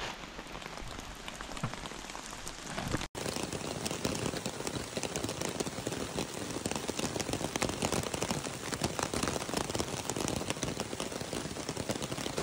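Steady rain falling, with many close raindrop ticks spattering near the microphone. The sound cuts out for an instant about three seconds in and comes back with denser, louder drop hits.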